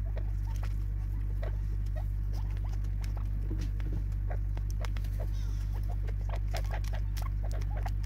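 Francolins pecking seed from a plastic feeder tub: a run of quick, sharp taps and clicks, busier in the second half, over a steady low hum.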